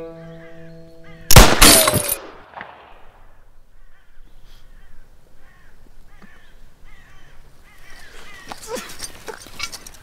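A single revolver shot about a second in, sudden and by far the loudest sound, ringing away over about a second. Faint short calls follow, repeating about once a second.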